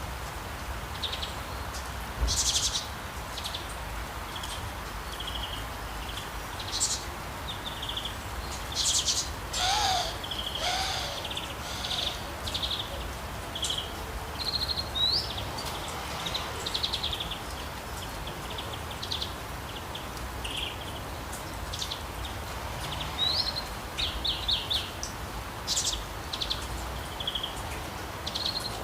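Many birds chirping and trilling in short high calls throughout, with two lower, sliding calls about ten seconds in, over a steady soft hiss of rain.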